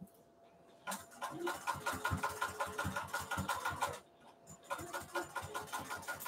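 Juki sewing machine stitching fast in two runs with a short stop between them, the needle's rapid even clatter driven by a hard-pressed foot pedal.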